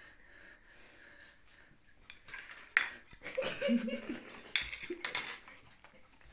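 A china plate, drinking glass and cutlery clinking and knocking on a stone countertop as a small dog eats chunks of wet food off the plate, in a run of sharp clinks from about two seconds in to near the end.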